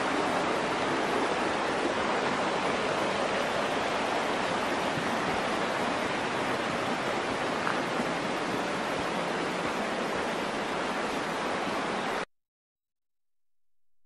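Kamenice River water rushing over rocks, a steady even noise that cuts off suddenly about 12 seconds in.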